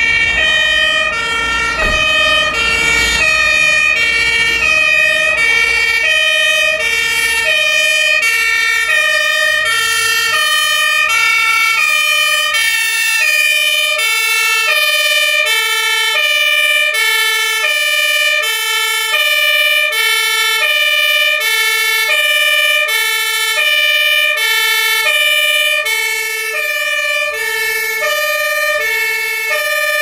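Fire engine's German two-tone siren (Martinshorn) sounding on an emergency run, switching steadily between a high and a low note, about one high-low cycle a second, with a steady high tone running beneath it. A truck engine rumbles under it in the first half.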